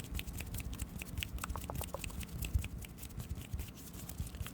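Close-miked ASMR mouth sounds: a dense run of small wet clicks and pops, some with a brief tone to them, over a low rumble.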